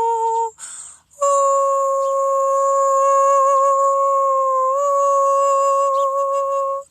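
A woman's voice singing without words: a short held note, a quick breath in about a second in, then one long sustained note held for over five seconds, shifting pitch slightly near the end.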